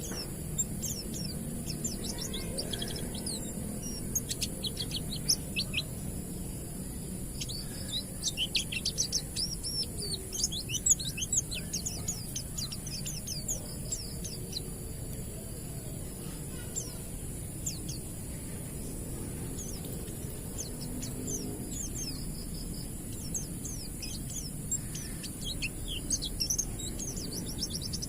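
White-eye (pleci) singing a fast twittering song of rapid high chirps, in bunched runs that come and go. A steady high hiss runs underneath.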